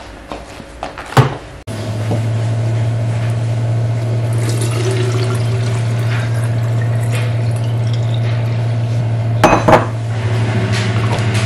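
Water poured from a glass carafe into a child's plastic water bottle, over a steady low hum that sets in about two seconds in and is the loudest sound. About two seconds before the end, the glass carafe is set down on the counter with two sharp knocks.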